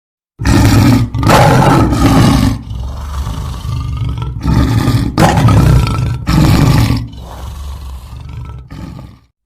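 A lion roaring: loud drawn-out roars in two bouts, the first starting about half a second in and the second around the middle, with quieter growling between and a fading tail near the end.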